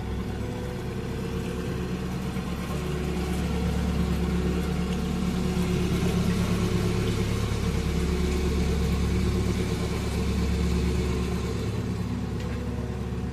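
Narrowboat's diesel engine running steadily at low cruising revs, a little louder in the middle.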